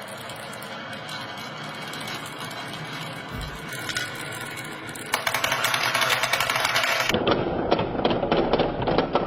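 Plastic marble-run toy: marbles rolling and clattering along a block track, with a toy vehicle's mechanism whirring. The sound grows louder about five seconds in, and after a sudden change about seven seconds in becomes a fast, dense run of small clicks.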